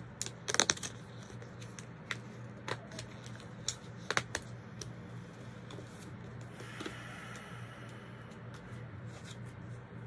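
Handling of small objects at a desk: a series of sharp clicks and taps, loudest in the first half, with a brief scraping rustle about seven seconds in, over a steady low hum.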